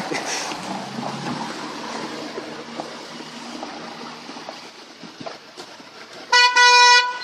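A vehicle horn sounds one steady toot of under a second near the end, over the noise of passing traffic.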